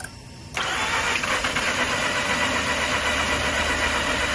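Starter cranking a 2005 Mazda RX-8's twin-rotor Renesis rotary engine. It begins about half a second in and keeps cranking steadily without the engine catching. This is the car's crank-but-no-start fault.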